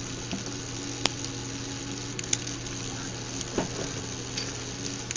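Steady hiss with a low steady hum, broken by a few faint clicks.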